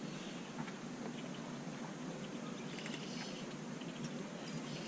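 Quiet river ambience around a fishing boat: a faint steady background with a few light, scattered ticks.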